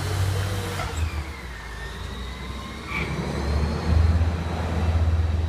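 Garbage truck engine running, its low rumble dropping back after about a second and rising again, louder, about four seconds in, with a faint whine above it.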